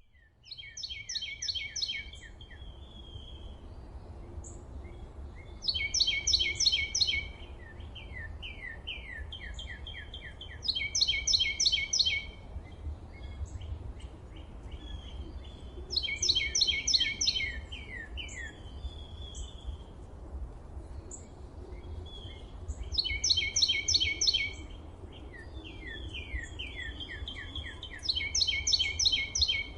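A songbird repeating a loud, rapid phrase of stacked notes about every five seconds, six times, with quieter chirps and short trills from other birds in between. A steady low rumble runs underneath.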